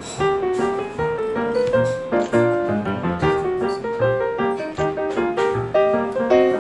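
Jazz piano music plays throughout, with a line of lower bass notes under the melody.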